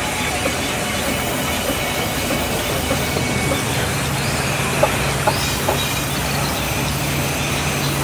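Vertical band sawmill running and sawing a slab off a log: a steady mechanical noise with a low hum that sets in about three seconds in, and three sharp knocks near the middle.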